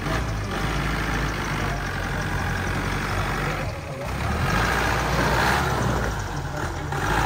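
Off-road jeep's engine running at low revs as it crawls over a rutted dirt track, growing louder about four to five seconds in.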